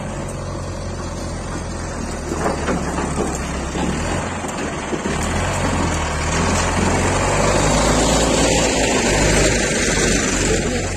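Engine of a slowly moving vehicle with tyre rumble on a rough gravel road, growing louder in the second half.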